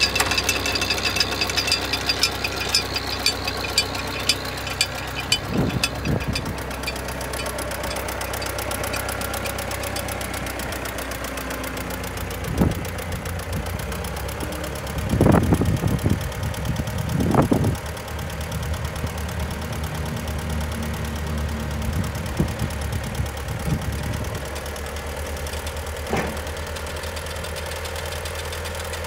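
Massey-Ferguson MF 85 tractor engine running at a steady idle, with rapid ticking over the first few seconds. A few brief louder surges come around the middle while the front loader is raised.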